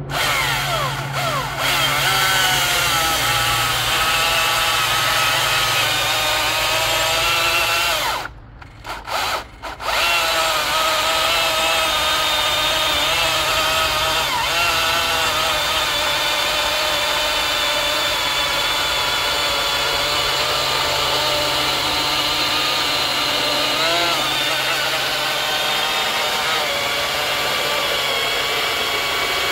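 Ego CSX5000 56-volt electric chainsaw with a 20-inch bar cutting through a big log, its motor whine wavering up and down in pitch as the load changes. It stops for about a second and a half roughly eight seconds in, then cuts on.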